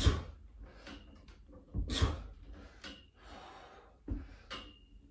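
A man breathing out hard with each pull-up rep: four sharp exhalations a second or so apart, the first two the loudest.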